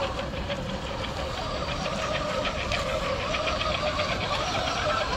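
Electric motor and gear drivetrain of a 1/10-scale RC crawler (Vaterra K5 Hilux) whining as it climbs at low speed, the pitch wavering up and down with the throttle. About halfway through there is a quick run of ticks.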